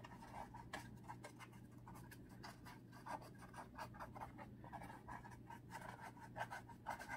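Paintbrush dabbing and scrubbing on a canvas: a faint, quick, irregular run of bristle taps and scratches.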